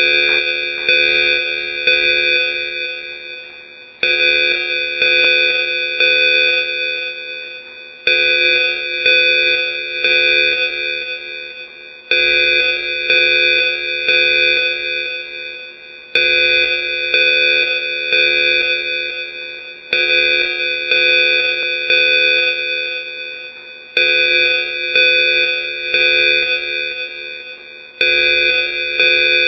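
Loud building evacuation alarm: a ringing, clanging tone struck about three times, a second apart, then dying away, with the pattern repeating every four seconds.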